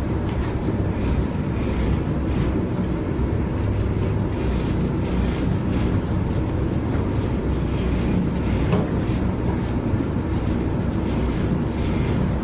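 Boat engine running steadily, a constant low rumble.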